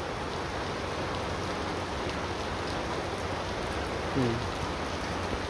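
Steady rain falling, an even hiss, with a short voice sound about four seconds in.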